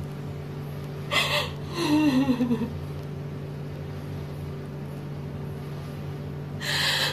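A woman crying: a sharp gasping sob about a second in, then a wavering whimper that falls in pitch, a pause, and another gasping breath near the end.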